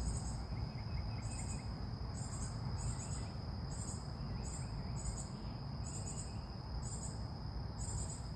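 Insects, crickets among them, calling outdoors: short pulsed chirps repeating evenly a little more than once a second over a continuous high-pitched insect whine, with a steady low rumble underneath.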